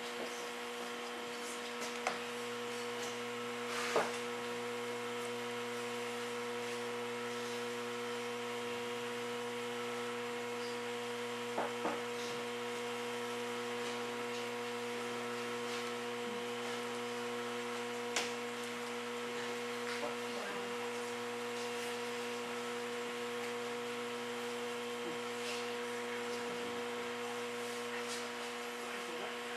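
Steady electric hum, with a few soft knocks and faint rubbing as hands and a sponge work the wall of a large clay jar.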